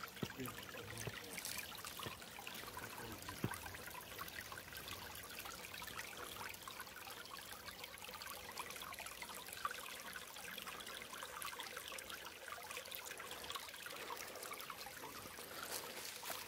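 Shallow creek trickling and babbling over flat rock ledges and stones, a steady even water sound, with a few brief clicks.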